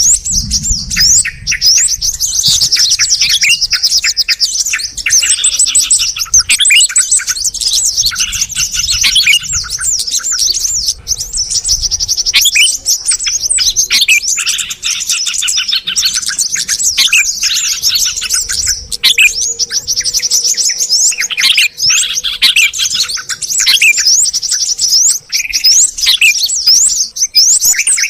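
Yellow-vented bulbuls and sooty-headed bulbuls calling together in a dense, continuous chatter of quick chirps and whistled notes. This is a mixed bulbul lure recording used to draw small birds in.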